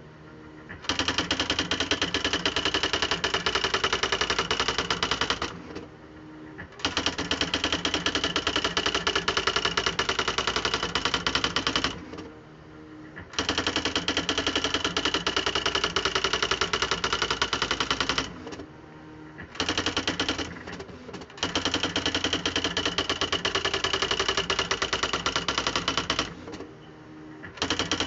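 Smith Corona Display Dictionary electric typewriter (model NA3HH) typing: runs of very rapid clicks several seconds long, broken by pauses of about a second, over a steady motor hum.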